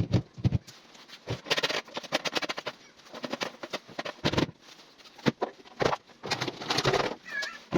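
Irregular clatter of knocks and clicks from objects being handled and set down, with a short high chirp near the end.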